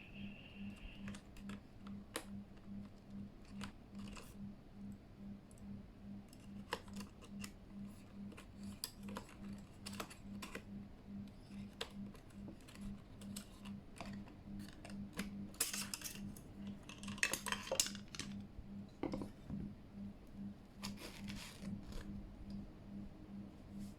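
Small hard plastic parts being handled on a desk: scattered sharp clicks and clatter, with a few longer rustling scrapes in the second half.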